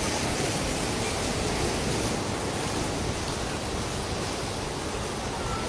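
Sea surf washing onto a beach, a steady even noise with no separate breaks standing out.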